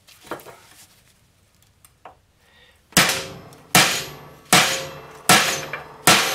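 Hammer driving a steel punch against a rusted, cut-off stud to knock it out of a steel strut top hat on a steel jig. A couple of light knocks, then about three seconds in five heavy metal-on-metal strikes, about one every 0.8 s, each ringing briefly.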